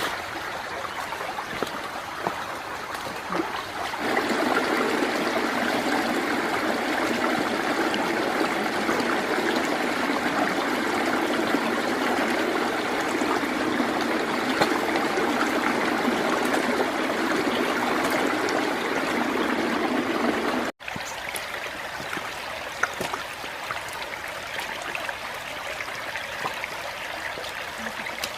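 Stream water running in a steady rush. It grows louder about four seconds in, breaks off abruptly about two-thirds of the way through, and carries on more softly.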